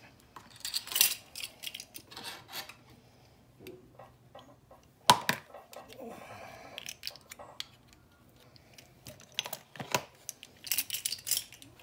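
Spoons clicking and scraping against a bowl and a plastic egg tray as deviled-egg filling is spooned into the egg halves, with one sharper clink about five seconds in and a quick run of taps near the end.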